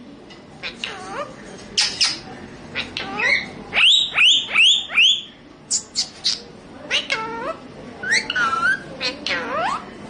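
Pet Indian parrot calling in a rapid string of short, shrill squawks and whistles, including a run of four quick falling calls about four seconds in.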